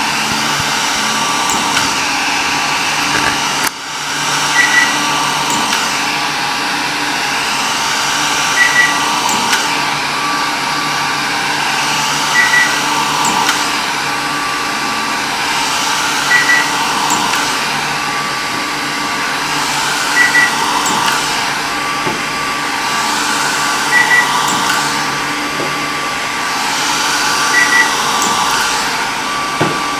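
E-O75 pulsed-light hair-removal machine running with a steady fan noise and a short beep about every four seconds, seven beeps in all. Each beep marks a flash of the handpiece.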